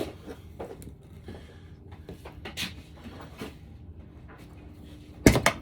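Flathead screwdrivers clicking and scraping against engine parts while prying, with a loud sharp clank about five seconds in.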